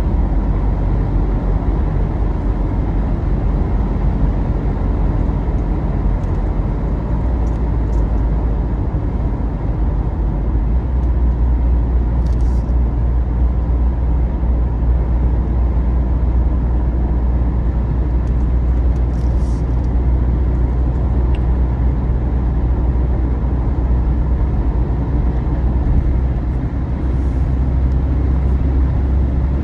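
Steady low rumble of road, tyre and engine noise inside a Jeep Wrangler's cabin at highway speed, with a few faint light ticks.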